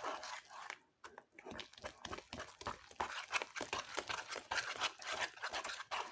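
Whisk stirring thick batter in a bowl, making rapid, irregular clicks and scrapes, with a brief pause about a second in.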